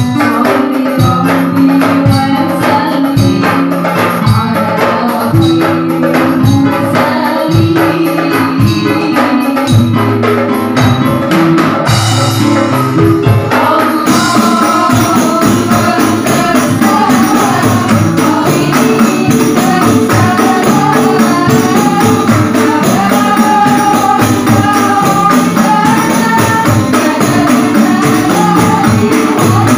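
Qasidah sung by women's voices through microphones, backed by rebana frame drums beaten in a steady rhythm.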